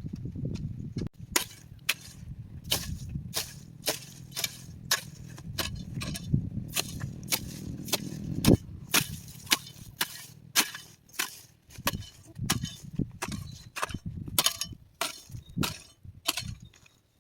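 A long series of sharp, irregular knocks or chopping strikes, about two to three a second, over a low rumble.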